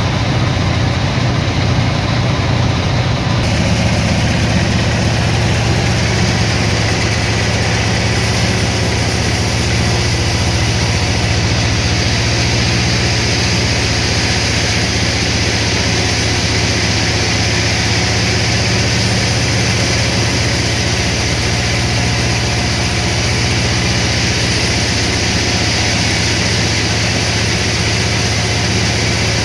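Sawmill machinery running steadily with a low, even hum, its character shifting slightly about three and a half seconds in.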